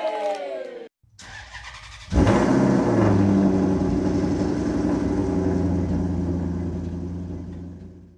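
A car engine starts suddenly about two seconds in, then runs with a steady low note and fades out near the end. Before it, a falling pitched sweep cuts off about a second in.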